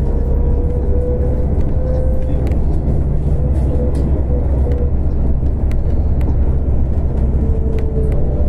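Ride inside a moving trolleybus: steady low rumble of the running gear and road, with an electric whine from the drive that fades out in the middle and comes back near the end, and a few light rattling clicks.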